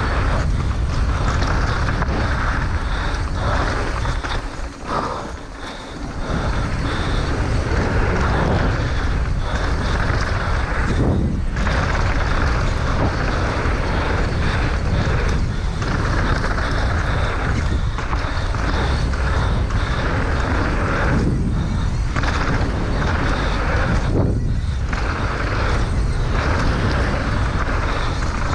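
Downhill mountain bike ridden fast down a bike-park trail: wind rushing over the mic, with tyre and bike rattle on the dirt. The noise is steady apart from a brief dip about five seconds in.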